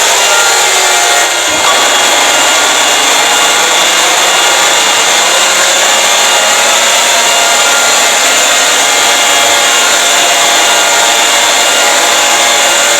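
Mock emergency alert system (EAS) alarm, heavily distorted: a loud, harsh wall of noise with several steady tones running through it, dipping briefly about a second and a half in.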